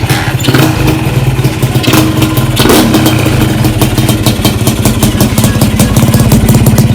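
Honda Nova RS-Super motorcycle with a two-stroke Honda Beat 110 engine running through a slit, thin-ground expansion-chamber exhaust, with a few short throttle blips in the first three seconds, then holding a steady fast firing beat.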